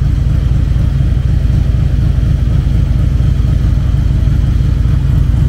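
Harley-Davidson Electra Glide Classic's V-twin engine running steadily with a fast, even low pulse. It has only just been got running and is not yet warmed up, with the carburettor still to be adjusted.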